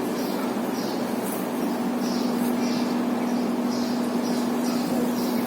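Steady motor hum over a faint hiss, with short high chirps scattered over it.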